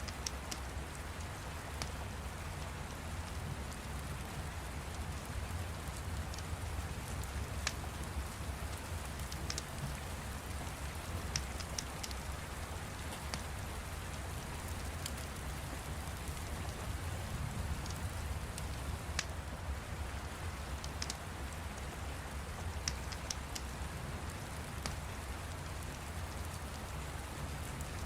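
Steady rain over a low rumble, with scattered sharp crackles of a wood fire every second or two.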